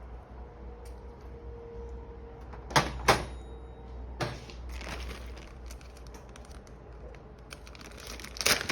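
A few sharp knocks and clicks of kitchen handling, two loud ones close together about three seconds in and a couple more a second later, over a low steady hum.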